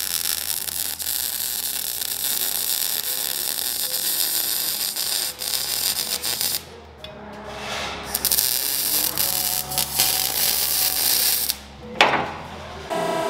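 MIG welder laying beads on an exhaust pipe, a steady crackling sizzle in two long runs with a short break just past the middle. It stops near the end, followed by a single sharp knock.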